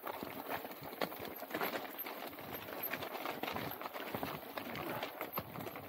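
Mountain bike rattling down a rough trail: tyres crunching over stones and the bike knocking in rapid, irregular clicks.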